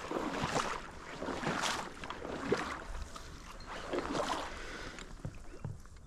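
Water sloshing and splashing in repeated surges about every second or two, with a few light knocks.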